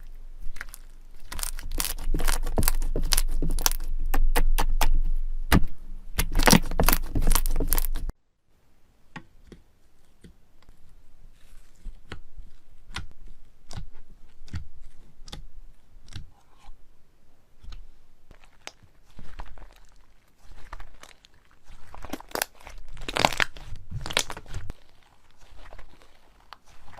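Slime being squeezed and pressed by hand, crackling and popping in dense clicks. About eight seconds in it cuts to softer, sparser crackles, with a louder burst of crackling near the end.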